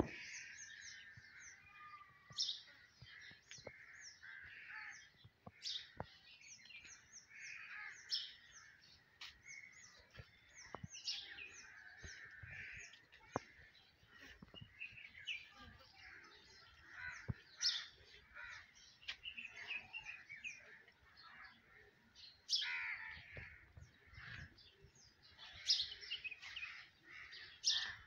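Birds chirping and calling outdoors, a busy run of short high notes with harsher calls mixed in, and a few sharp ticks now and then.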